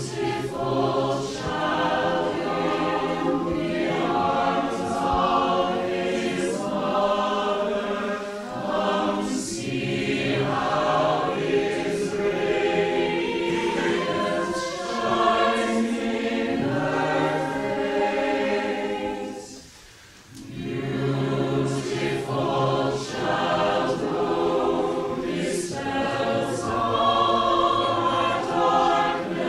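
Mixed choir of men's and women's voices singing together in parts, with a brief pause between phrases about twenty seconds in.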